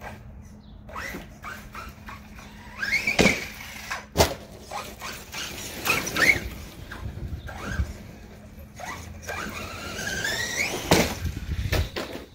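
Redcat Landslide XTE electric RC truck driving hard: its motor whines up in pitch in several bursts of acceleration, about three seconds in, about six seconds in and again toward the end. Sharp thumps from the truck hitting the ground come about three, four and eleven seconds in.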